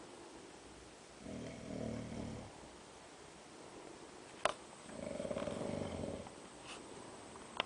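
A man snoring in his sleep: two long snores, the second starting about three and a half seconds after the first. A sharp click comes between them.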